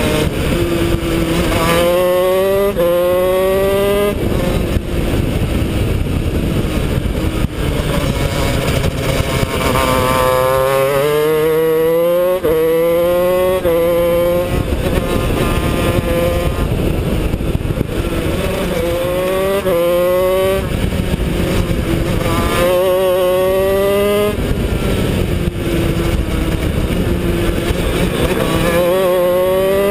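Honda CR125 125cc two-stroke single-cylinder engine of a shifter kart at race pace, heard from the driver's helmet camera. It revs up through the gears in several runs, the pitch climbing and dropping at each quick upshift, with rougher, broken running between the runs as it comes off the throttle for corners.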